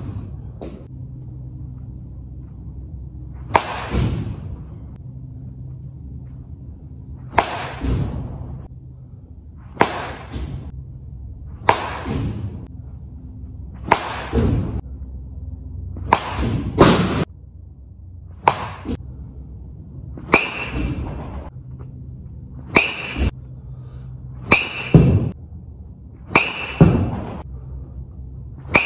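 Baseball bat hitting balls off a batting tee: a sharp crack about every two seconds, about a dozen in all, each echoing briefly in the indoor hall. A steady low hum runs underneath.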